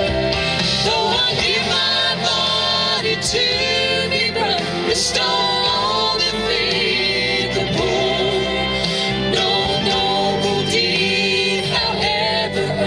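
Gospel song performed live: singing over steady instrumental backing in a country style.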